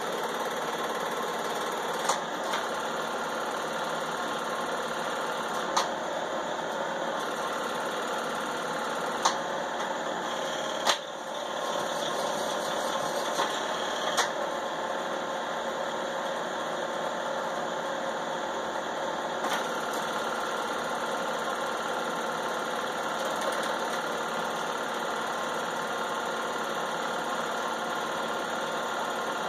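Home-movie film projector running with a steady mechanical whir, with a handful of short sharp clicks scattered through.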